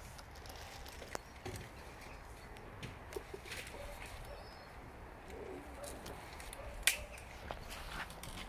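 Small, scattered clicks and taps of a toddler's plastic toy keys against a car door handle and lock, with one sharper click about seven seconds in.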